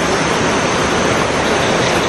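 Steady rushing of river water, a loud even noise.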